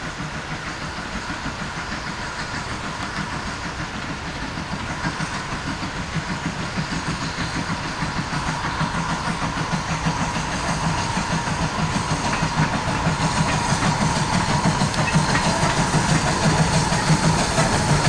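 GWR 0-4-2 tank engine No. 1450 running with its train, a fast rhythmic beat and steam hiss growing steadily louder as it approaches.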